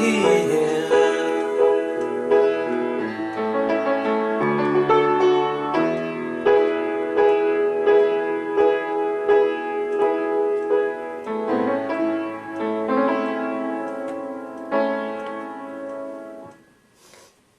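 Piano playing the instrumental outro of a pop song demo: chords struck in a steady repeated rhythm over a low bass line, stopping abruptly near the end, followed by a brief soft noise.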